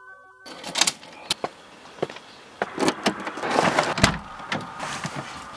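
Handling noises inside a car: a run of sharp clicks and knocks with rustling, and a louder stretch of rustling about three to four seconds in.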